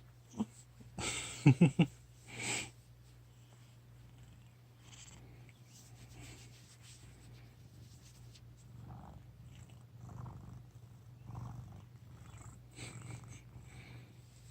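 House cat purring, soft and steady, swelling and easing with each breath about every second and a half. A few louder, short pitched sounds come in the first two and a half seconds.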